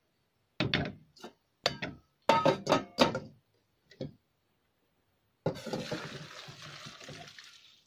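Stainless steel stockpot and wire-mesh strainer clinking and knocking as they are handled, a run of sharp metal knocks. Then, about five and a half seconds in, the fish broth pours out of the tilted pot for about two seconds, tapering off.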